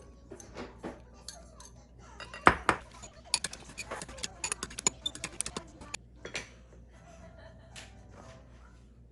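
Kitchen utensils clinking against dishes and bowls: a sharp knock about two and a half seconds in, then a quick run of light clinks for a couple of seconds, and a few more scattered clinks.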